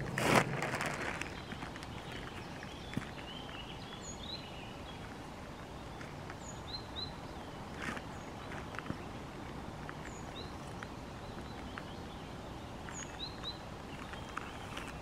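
Woodland ambience: a steady outdoor hiss with short, high bird chirps every few seconds, often two close together, and a few faint clicks. A brief louder rustle right at the start.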